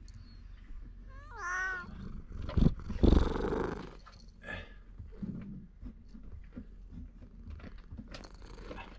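A cat meows once, a single wavering call about a second and a half in. It is followed by a thump and about a second of scuffling noise, the loudest part, and then scattered light clicks.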